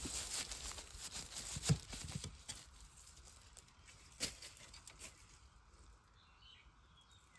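Faint crackling and rustling of dry bamboo leaves and twigs as they are handled, with a few light snaps, dying away to near silence for the last two seconds.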